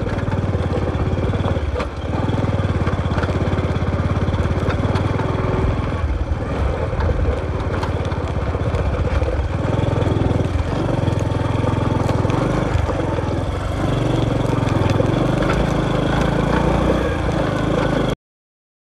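Motorcycle engine running at low speed while riding over a rough dirt track. The level dips briefly a few times, and the sound cuts off abruptly near the end.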